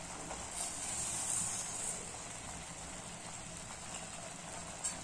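Granulated sugar poured from a bowl onto moist carrot halwa in a wok, a soft brief hiss in the first two seconds, over the faint steady sizzle of the halwa cooking.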